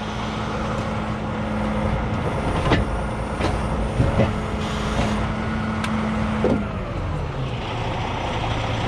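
Heavy tow truck's diesel engine running at a raised idle, with several sharp knocks a few seconds in; about seven seconds in the engine speed drops to a lower idle.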